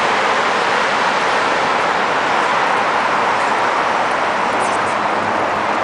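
A steady, even rush of outdoor noise with no distinct events, most likely traffic noise.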